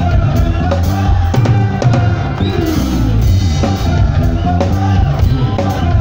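Live rock band performing: a drum kit keeps a steady beat under bass and guitar, with a voice singing. A cymbal wash swells around the middle.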